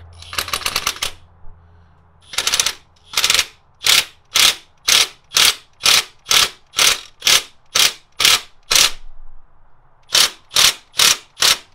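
Milwaukee M18 FUEL cordless impact wrench hammering on the crankshaft pulley bolt, tightening it on its first setting, which the owner gives as 125 foot-pounds. It runs in one burst of about a second, then in about a dozen short trigger pulses roughly two a second, and after a pause a few more.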